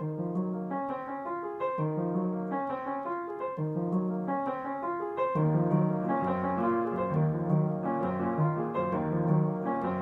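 Background piano music: a short, regularly repeating phrase of notes, with fuller, louder low notes coming in about halfway through.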